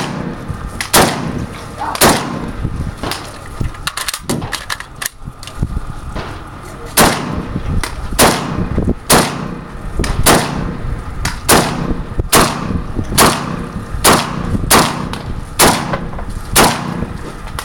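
Rifle shots fired at a steady pace of about one a second during a timed course of fire, with a pause of about three seconds after the first few shots before the firing resumes.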